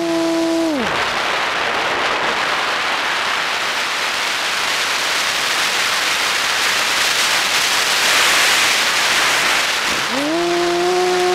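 An FPV model plane's motor and propeller whine drops in pitch and cuts out about a second in as the throttle is closed, leaving the rush of air over the airframe and onboard microphone while the plane glides and dives, loudest about eight seconds in. Near the end the motor spools back up with a quick rising whine and settles at a steady pitch.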